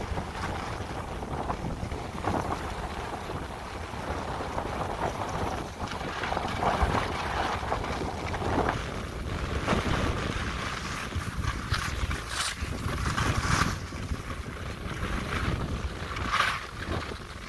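Wind rushing over the microphone of a skier moving downhill, with skis hissing and scraping on groomed spring snow through the turns. Several sharper scrapes come in the second half.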